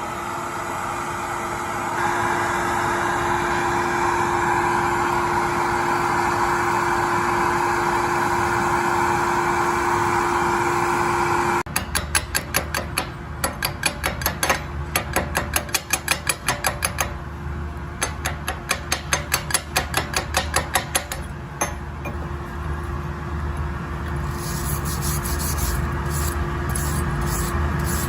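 Arc welding on galvanized steel sheet: a steady hiss over a constant hum for about the first twelve seconds, then a rapid, regular train of sharp crackling pulses, turning to a rougher sputter near the end.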